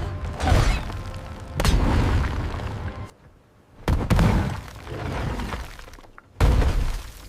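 A series of loud cartoon crash and smash sound effects, heavy impacts with a deep low end, coming every couple of seconds. The sound drops briefly quiet about three seconds in.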